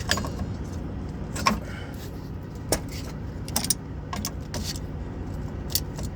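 Sharp metallic clinks of hand tools, vise grips and a bar, against the purge valve as it is worked loose from a truck air dryer: several clinks, roughly one a second, over a steady low rumble.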